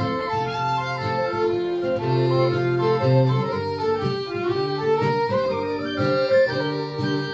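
Small folk ensemble playing a tune: fiddle and piano accordion carry the melody over a strummed acoustic guitar.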